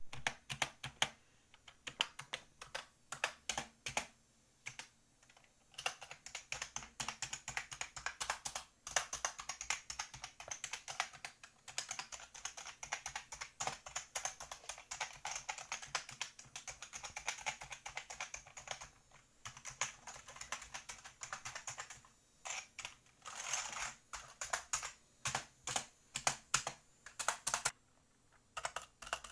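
Typing on a cheap $10 membrane computer keyboard, whose shift, space, backspace and enter keys are clicky. A few scattered keystrokes lead into fast, continuous typing, which pauses briefly near the end before resuming.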